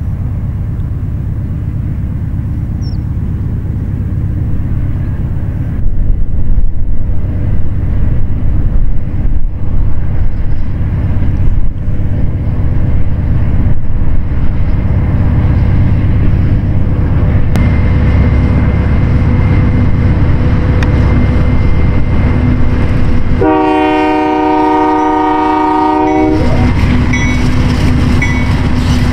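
Union Pacific freight train of empty covered grain hoppers passing close, its diesel locomotives and wheels on the rails making a loud, steady rumble that grows louder as the train comes by. Near the end the locomotive's air horn sounds one chord for about three seconds.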